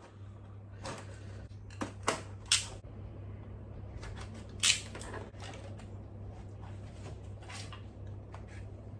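Toy packaging being handled and opened: a scatter of short sharp clicks and rustles, the loudest about four and a half seconds in, over a steady low hum.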